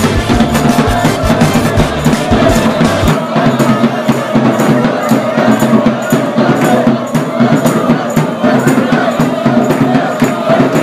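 Music: voices singing over a steady, fast percussion beat.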